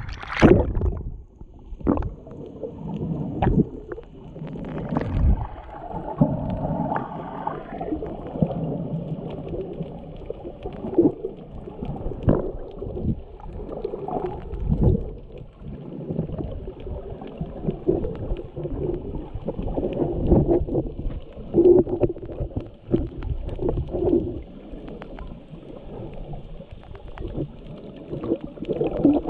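Water sloshing and gurgling around a GoPro action camera held at and below the surface, heard muffled through its waterproof housing. Sharp splashes come near the start as it breaks the surface.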